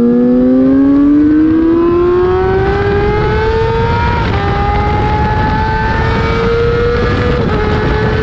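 Race motorcycle's engine under hard acceleration out of a corner. Its pitch climbs steadily, drops at an upshift about four seconds in, climbs again, and drops at a second upshift near the end.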